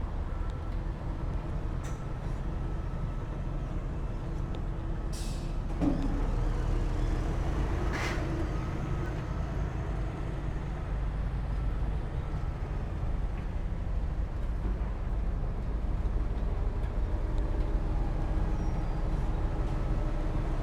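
Heavy diesel earthmoving machinery running steadily, with a short hiss about five seconds in and a sharp clank around eight seconds.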